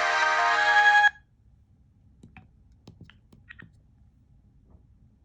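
Motorola RAZR V3 polyphonic ringtone playing a bright synthesized melody, cut off abruptly about a second in. A few faint clicks follow in the quiet.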